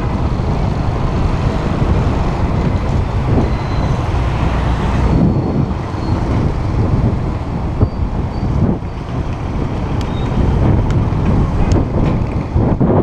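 Wind rumbling steadily over the microphone while cycling along a street, with motorbike traffic around.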